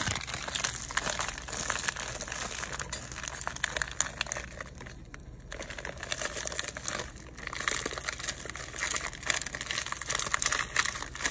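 Plastic bag of frozen broccoli cuts crinkling as it is squeezed and shaken out over a pot, with a brief lull about halfway through.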